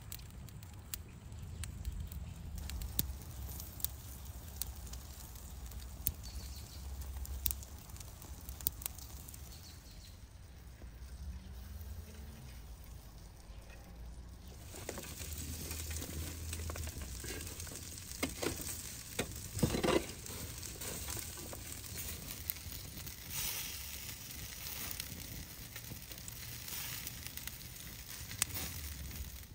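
Charcoal fire crackling and sizzling under a whole lamb roasting on a spit, with scattered sharp pops. About halfway through come a few louder scrapes and knocks as the coals are shifted with a shovel.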